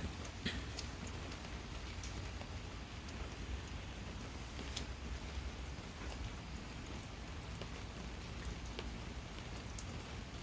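Steady gentle rain, with scattered drops ticking and spattering sharply close by.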